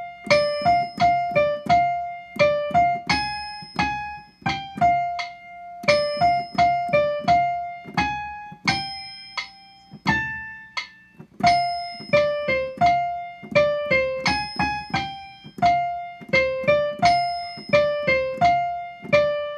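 Piano playing a flute part as a single-note melody, one struck note at a time, in short phrases with brief pauses between them; the same phrase comes round again.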